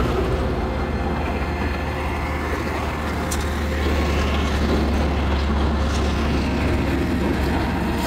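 Steady rumble of road traffic running past on a highway, with a low hum underneath, swelling slightly a few seconds in.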